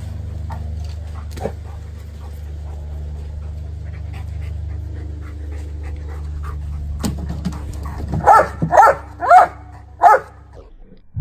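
Yellow Labrador retriever barking four times in quick succession, each bark short and bending in pitch, about half a second apart.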